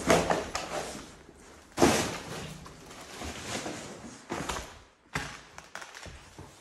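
Several loud thumps and scrapes, the loudest two about two seconds apart and weaker knocks later, each trailing a short echo of a bare room.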